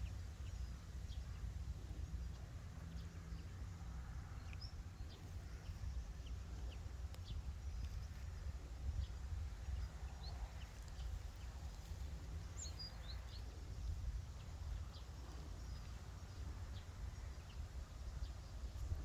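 Small wild finches giving scattered short, high call notes, a few every second or two, over a steady low rumble.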